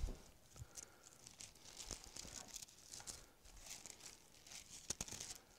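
Thin Bible pages being leafed through: a run of faint, papery rustles and crinkles with a few soft taps.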